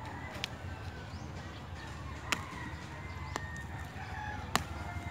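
A rooster crowing in the background, with a few sharp clicks from a blade cutting open a cardboard box; the loudest clicks come a little past two seconds in and near the end.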